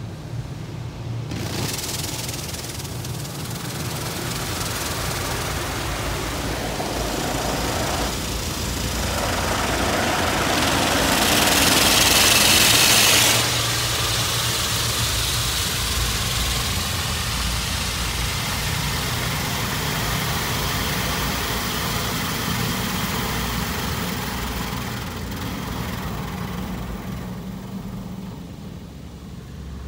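Mark VII touchless car wash spraying the car with its water jets, heard from inside the car as a steady hiss over a low hum. The hiss swells to its loudest about halfway through, drops back suddenly, and eases off near the end.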